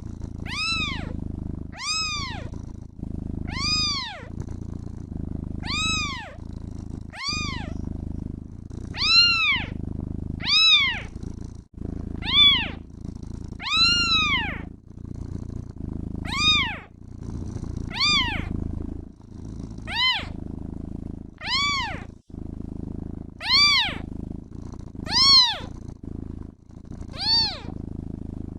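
Kitten meowing over and over, short high calls that rise and fall in pitch, about one every one and a half to two seconds, with a steady purr running underneath.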